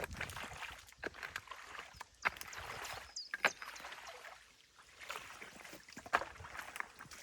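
Water splashing and sloshing, broken by several sharp knocks, as the wet sticks and mud of a small beaver dam in a stream are worked apart.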